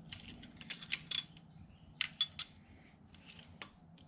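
Sharp metallic clicks and clinks in small clusters, steel hand tools against steel: an on-head lever-type valve spring compressor being fitted and worked over a valve spring on a 4.3L Vortec V6 cylinder head.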